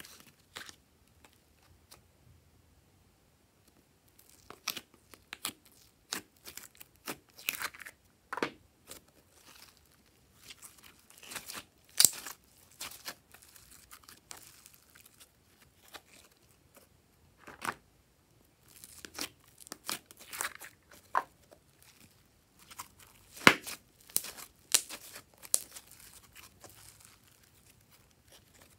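Slime being stretched, folded and squeezed by hand, giving irregular sticky crackles and small pops as it pulls apart and air pockets burst. The crackles come in clusters with short quiet gaps and a couple of sharper pops.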